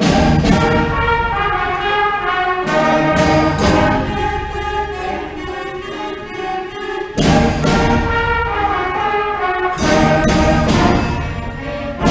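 Middle school concert band playing live: sustained brass and woodwind chords, with loud full-band entries with percussion at the start, about seven seconds in and about ten seconds in.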